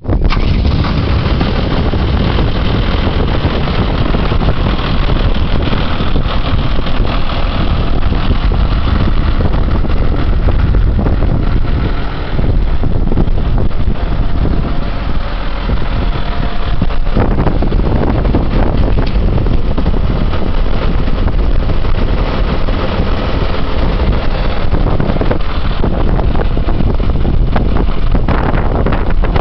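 Farm tractor's diesel engine idling steadily, with wind buffeting the microphone.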